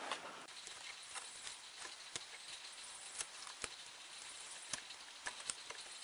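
Faint scattered clicks and rustles of hands wrapping electrical tape around a soldered wire splice, over a steady low hiss.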